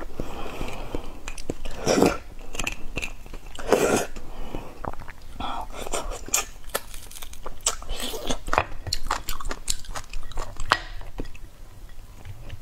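Close-up eating sounds of beef bone marrow: chewing the tendon on the bone and sucking marrow from the bone end, with many sharp mouth clicks and a few louder bursts.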